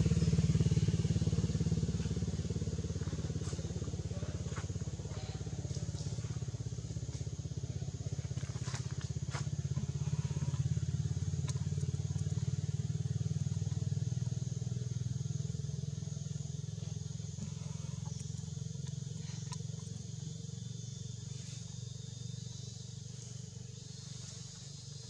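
Low, steady motor hum, slowly fading away, with a faint steady high hiss and a few scattered sharp clicks.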